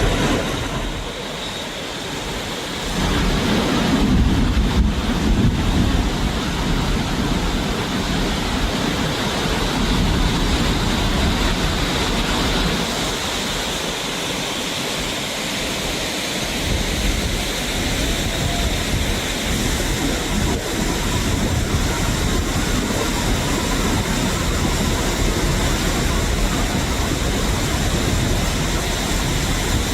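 Floodwater rushing down a field in a steady, loud, noisy torrent, with some wind on the microphone.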